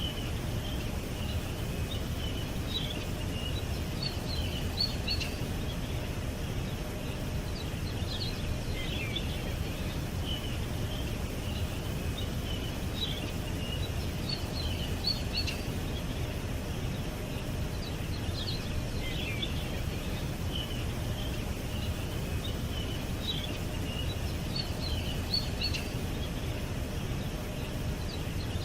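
Small birds chirping and twittering in short, high, scattered phrases, over a steady low rumble of background noise.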